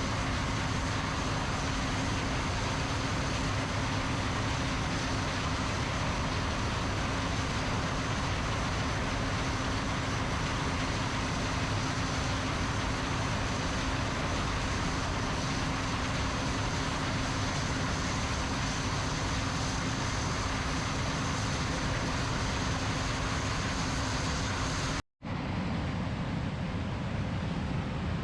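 A John Deere combine harvester running steadily while harvesting corn: a constant machine drone with a steady hum and a faint high whine over it. About 25 seconds in the sound drops out for an instant and then resumes duller, with less hiss.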